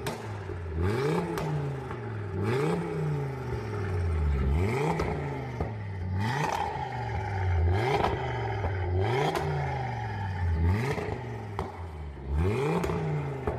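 Audi RS3's turbocharged 2.5-litre five-cylinder engine being revved repeatedly while the car stands still, about nine blips, each climbing and falling back, with the exhaust valves open.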